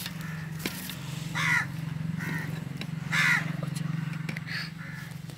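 A crow cawing repeatedly, a string of short harsh calls about a second apart, two of them loud, over a steady low hum.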